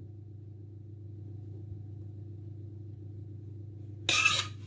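A steady low hum, with a brief clatter of a metal pan about four seconds in.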